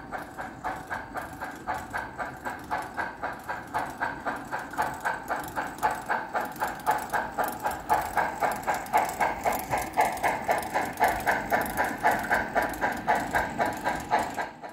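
HO-scale model of a Duluth, Missabe & Iron Range 2-8-8-4 Yellowstone articulated steam locomotive running past with a train of ore cars, its sound decoder giving a steady, even exhaust chuff several beats a second. The chuffing gets somewhat louder in the second half as the engine comes close.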